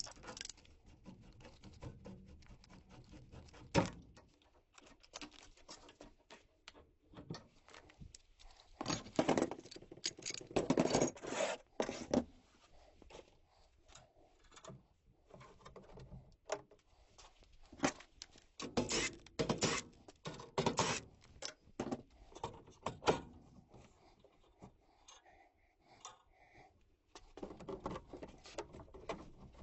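Irregular clicks, knocks and short scraping rattles of hand tools and metal furnace parts being worked on during a gas furnace teardown.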